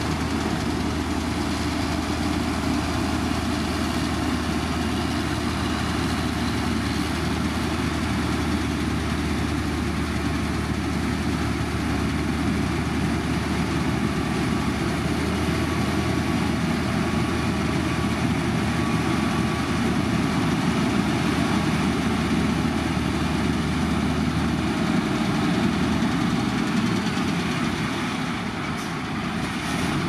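Heavy construction machine's diesel engine running steadily with a low hum. The lowest part of the hum drops away near the end.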